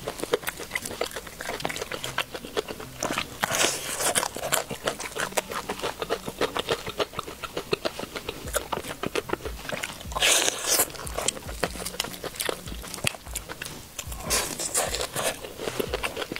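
Close-miked crunching and chewing of crispy crumb-coated fried chicken: a steady run of small crackles, with three louder bursts of crunching about 4, 10 and 15 seconds in.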